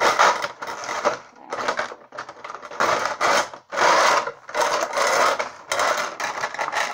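Tape being pulled and cut off a clear plastic statue box, the stiff plastic packaging crackling and rustling in irregular bursts.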